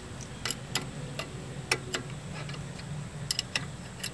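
Wrench turning a brake-hose banjo bolt into a new brake caliper a little at a time: sharp metallic clicks at irregular intervals, with a quick cluster of three near the end.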